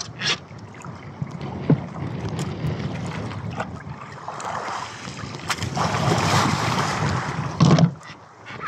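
Sea water splashing against the side of a small outrigger boat as a hooked mahi-mahi is hauled up alongside by handline, with wind on the microphone. The splashing grows heavier in the second half, and there is a loud thump shortly before the end.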